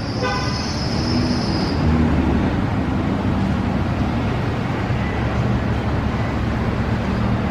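Steady traffic noise from vehicles running and moving in a busy gas-station parking lot, with a thin high-pitched whine in the first couple of seconds.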